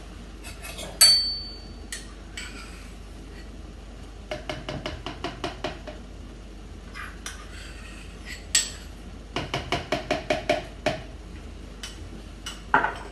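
A spoon clinking and tapping against a small bowl and a plastic jug as mustard is scooped into oil: one sharp clink with a brief ring about a second in, then two runs of quick light taps.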